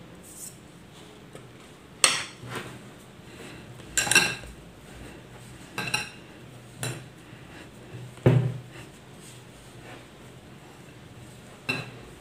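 Glass mixing bowl knocked and clinking as cookie dough is kneaded by hand in it: about seven separate knocks with a short glassy ring, irregularly spaced, the loudest about eight seconds in.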